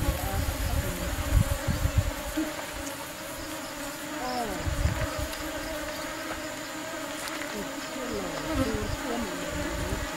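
Bees buzzing at the entrance of a wooden box hive: a steady hum with single bees flying close past, their buzz sliding up and down in pitch. Low rumbling comes in the first two seconds.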